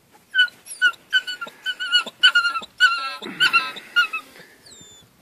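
Anatolian Shepherd–Akbash cross puppies whining, a rapid string of short, high cries overlapping one another.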